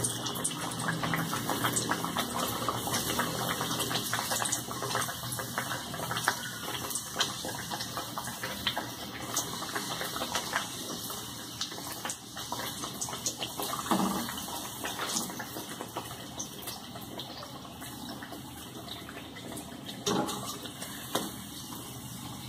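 Dal kachori deep-frying in hot oil in a karahi: steady sizzling with many small crackles, easing off gradually, and a couple of louder knocks, midway and near the end.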